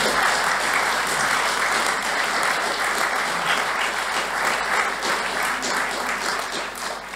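Audience applauding at the end of a talk, a steady clatter of many hands that tapers off near the end.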